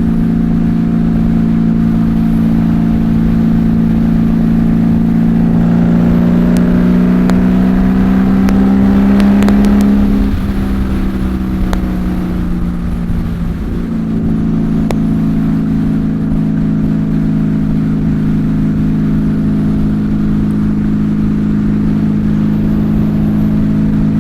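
Honda Valkyrie flat-six engine with Cobra six-into-six pipes running under load while riding. Its pitch climbs slowly for several seconds, drops away sharply about ten seconds in, dips once more, then settles into a steady cruise, over a low rush of wind.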